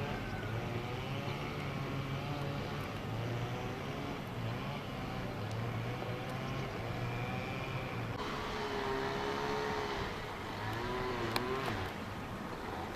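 Freight train locomotive running with a steady low hum, with faint wavering higher tones over it and a single sharp click near the end.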